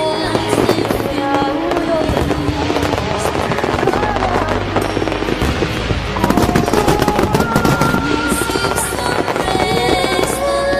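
Fireworks shells bursting with rapid popping and crackling over a background song's melody. The bangs come thickest in the second half.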